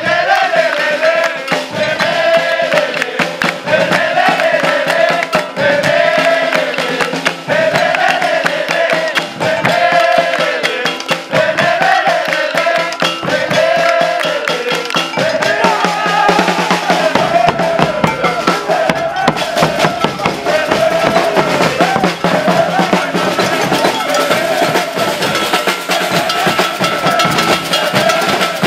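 Maracatu street drumming on alfaia bass drums and snare drums, with a group of voices singing a short phrase over and over for the first half. After about 17 s the singing fades into the drums and the deep bass drum beats grow stronger.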